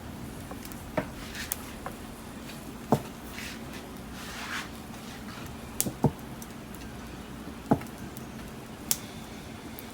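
Wood fire crackling: a handful of sharp, irregular pops and cracks from burning firewood and charcoal, with a soft hiss about halfway through.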